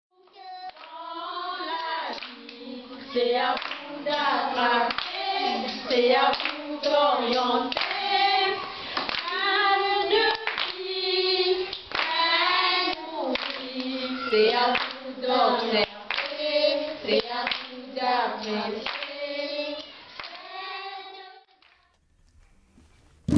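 A group of children singing a song together while clapping their hands; the singing and clapping stop about two seconds before the end.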